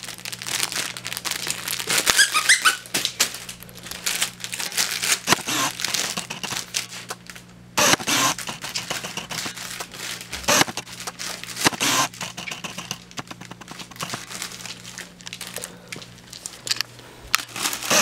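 Cellophane wrapper crinkling and crackling in irregular bursts as a dachshund mouths and tugs a wrapped plush lollipop toy, with a short high-pitched whine from the dog about two seconds in.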